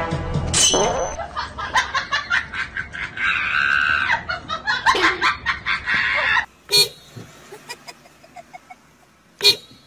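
A run of quick, uneven pulsing sounds for about six seconds, then, after a sudden drop in level, two short car horn toots about three seconds apart, the second the loudest.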